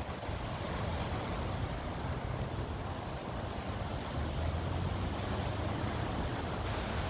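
Wind rushing over a phone's microphone: a steady hiss with an uneven low rumble.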